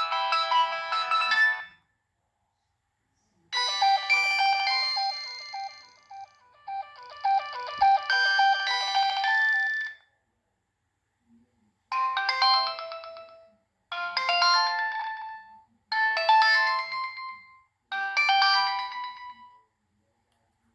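Preloaded ringtones on a Nokia 6015i phone played one after another through its speaker: one melody ends shortly after the start, a longer tune follows after a short pause, then a short chiming phrase repeats four times, about two seconds apart.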